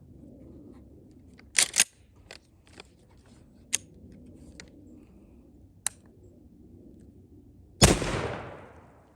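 Two sharp clicks and a few lighter ticks, then near the end a single blast from a 12-gauge Mossberg 835 pump shotgun firing a heavy 3.5-inch turkey load of number 5 shot, its report dying away over about a second.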